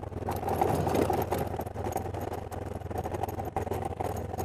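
BMW F800GS parallel-twin engine running steadily as the motorcycle rides along a gravel road, with many small clicks and knocks from the tyres and bike over the loose surface.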